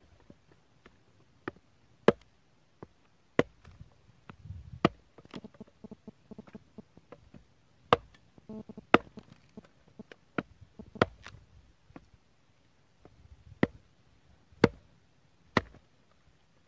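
Hatchet splitting kindling off a wooden log: sharp chopping strikes at an uneven pace, roughly one a second, with softer knocks in between.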